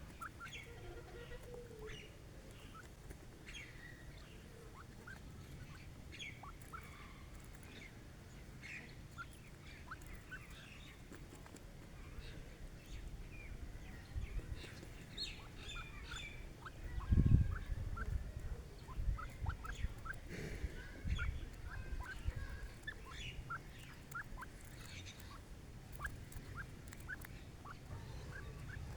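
Francolins (partridges) calling, with many short, scattered chirps. A few low thumps come a little past halfway and are the loudest sounds.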